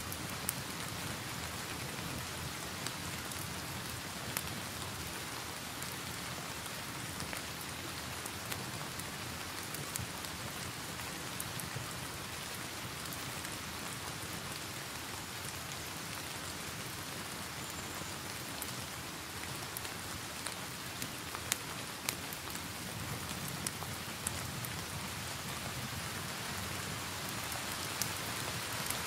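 Steady rain mixed with a crackling fireplace fire: an even hiss of rainfall with scattered sharp pops and crackles.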